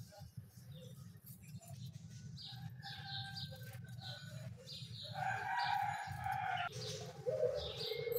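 Birds chirping over a steady low hum, with louder pitched calls from about five seconds in; faint snips of scissors cutting through stiffened fabric.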